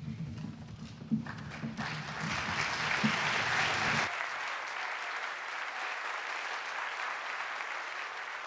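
Audience applauding in a concert hall, the clapping swelling about two seconds in and then holding steady. Under the first four seconds runs a low rumble that cuts off suddenly.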